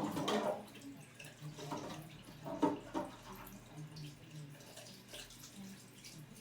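Water running and dripping into a sink in a small room, with a few short louder sounds in the first three seconds.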